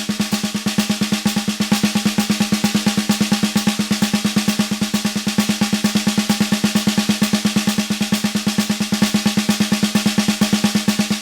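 Snare drum with its snare wires engaged, played with sticks in an even stream of sixteenth notes, bars of single strokes alternating with bars of a double stroke roll. The buzzing wires blur the strokes together so the singles and doubles sound nearly alike.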